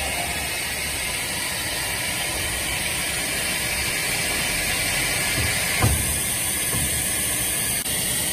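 Plastic hot plate welding machine running its weld cycle: a steady hiss, with a single thump about six seconds in.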